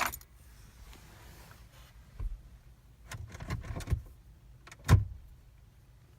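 Jeep's ignition turned without the engine cranking: a click, then several dull knocks and clicks, the loudest about five seconds in, and no engine running. The no-crank is what the owner takes for the park/neutral interlock not being engaged by the transmission control module although the selector is in park.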